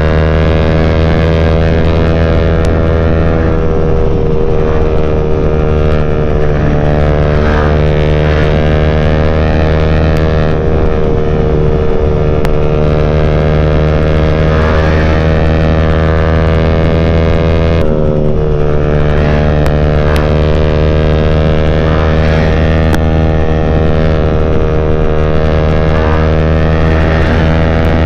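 Yamaha Y15ZR's 150 cc single-cylinder engine running through a CJ Ipoh aftermarket exhaust while riding, its note drifting slowly up and down with the throttle. The pitch drops suddenly at a gear change about 18 seconds in, then climbs again.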